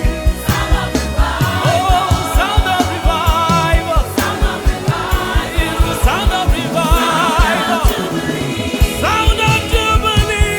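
Gospel song: sung vocal lines over a band with a steady drum beat.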